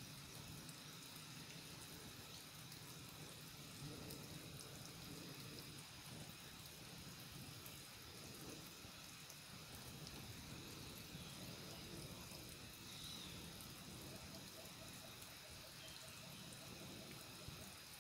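Faint steady outdoor ambience: an even low hiss with faint high steady tones, and a short, faint pulsing trill about three-quarters of the way through.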